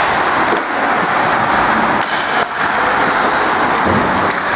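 Steady, loud din of an ice hockey game in play: skates cutting the ice and rink noise, with a few faint knocks.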